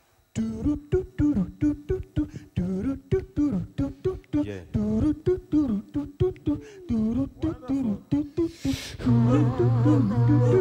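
Male a cappella vocal group singing into microphones: short, clipped voiced notes with gaps between them. Near the end a brief breathy hiss, then the full group comes in with sustained chords over a low vocal bass line.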